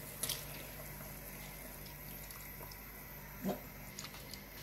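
Raw gizzards sliding off a metal spoon into a pot of hot water and being stirred in, with faint sloshing and a light click, over a steady low hum. A brief louder sound comes about three and a half seconds in.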